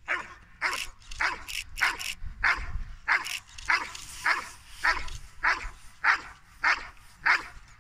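A dog barking in a steady, regular rhythm, about three barks every two seconds, during the protection phase of a working-dog trial.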